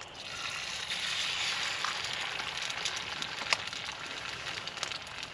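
An egg cracked into hot oil in a small camp skillet, sizzling and crackling. A sharp click comes as the egg is cracked, then the sizzle builds within about a second, is loudest for the next couple of seconds and carries on a little lower.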